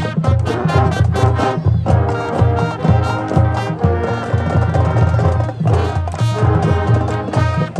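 High school marching band playing: brass melody and chords over a steady drum beat with strong low bass pulses.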